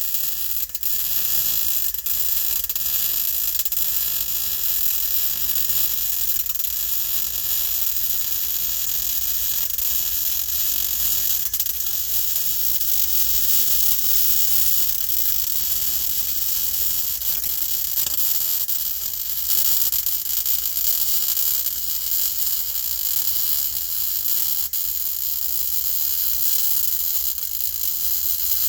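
Welding arc crackling steadily as a seam on a sheet-steel car floor pan is welded. It stops suddenly at the very end.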